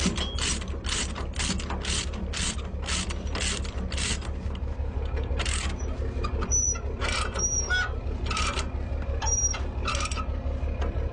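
Ratchet load binder being cranked to tighten a tie-down chain, its pawl clicking about three times a second, then slowing to a few separate clicks with pauses in the second half.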